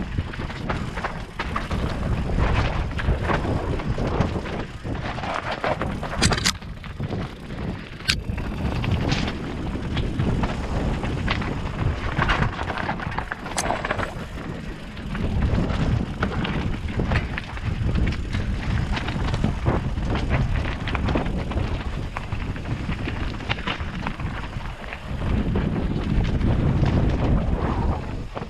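Mountain bike riding over a rocky trail: wind buffeting the microphone and tyres rumbling over rock, with a few sharp knocks and rattles from the bike.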